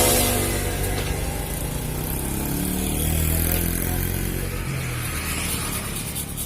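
Bored-up Yamaha Mio scooter's single-cylinder four-stroke engine running and being revved: the pitch drops off at the start, climbs again about two to three seconds in, then falls back toward idle.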